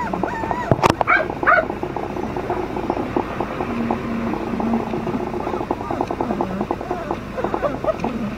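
Flat-coated retriever puppies whining and squealing, a steady chatter of short high-pitched whimpers that rise and fall, with one sharp knock just before a second in.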